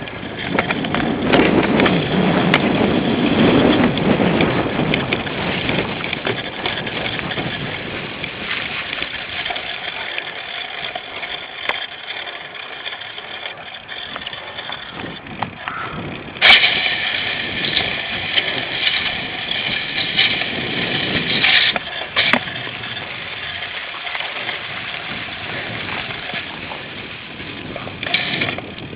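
Cyclocross bike ridden at race pace over rough ground, with constant rattling, clicks and knocks from the bike and wind on the mounted camera's microphone. About halfway through there is a louder stretch of several seconds with steady high ringing tones.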